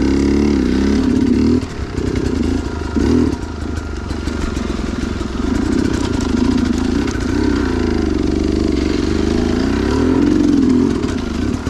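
Two-stroke dirt bike engine working hard, its pitch rising and falling with the throttle. The engine note drops off briefly twice in the first few seconds, then picks back up.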